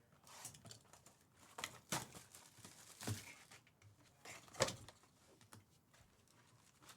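Foil trading-card pack wrappers crinkling and tearing as packs are ripped open, with scattered sharp clicks and taps from cards being handled; the loudest click comes about four and a half seconds in.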